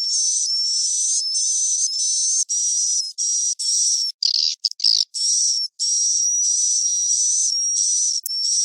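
Swiftlet roosting lure call ('suara inap'), the sound played in a swiftlet house to draw the birds in to roost: a dense stream of high, buzzy twittering chirps with a steady whistle-like tone running through it, broken by several short breaks, and nothing in the low range.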